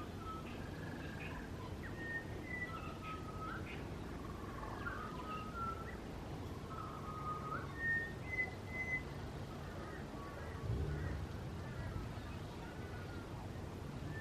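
Several birds singing in the early morning: clear whistled notes and short phrases that hook upward at the end, overlapping one another, over a steady low rumble.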